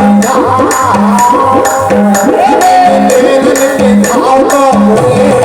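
Folk-song music with a steady drum beat about once a second, quick high ticks from percussion, and a gliding melodic line over it.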